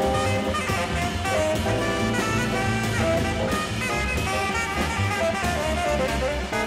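Jazz band playing live: a tenor saxophone leads over electric piano, bass and drums.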